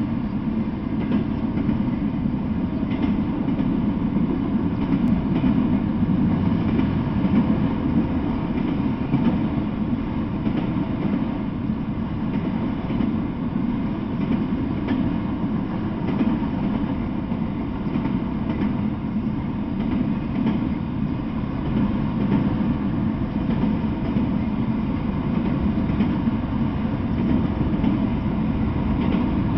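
Freight train of enclosed autorack cars rolling steadily past, a continuous low rumble of wheels on rail with faint scattered clicks.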